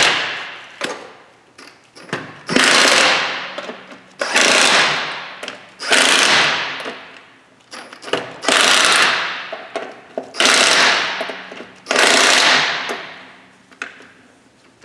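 Snap-on impact wrench running lug nuts onto the wheel studs in seven short bursts, each starting loud and fading over a second or so.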